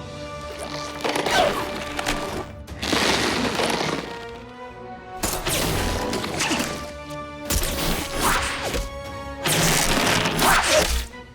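A run of about five separate superpower sound effects for a stretching superhero, each a second or two long, played one after another over steady background music.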